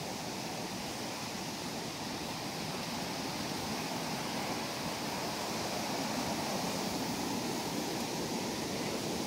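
Steady rushing of a rocky woodland creek's whitewater cascades, growing a little louder near the end.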